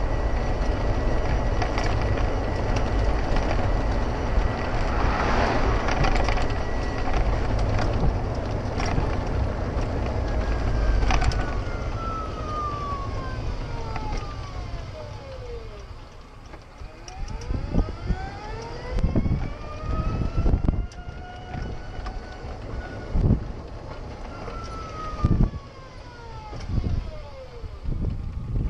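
A moving golf cart: a steady low rumble of wind and wheel noise through the first half. In the second half it gives way to irregular thumps of wind buffeting the microphone, with faint tones sliding up and down in pitch.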